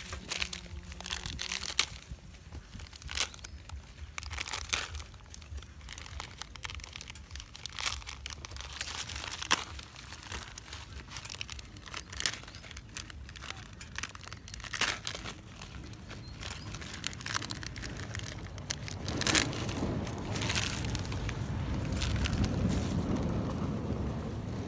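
A long-tailed macaque handling a plastic snack packet, the packet crinkling and crackling in sharp, irregular bursts as the monkey pulls at it and eats. In the last five seconds there is a louder, steadier rustle.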